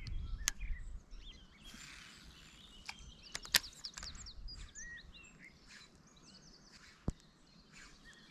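Small birds chirping in short, quick twittering calls, scattered throughout. Two sharp clicks, one about three and a half seconds in and one near seven seconds, and a brief rustling rush around two seconds in.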